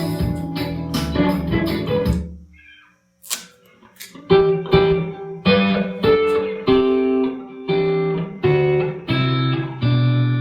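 2021 Squier Classic Vibe electric guitar playing. A phrase stops about two seconds in, and after a short near-silent gap single picked notes start up one at a time, roughly one every three quarters of a second, the last left ringing.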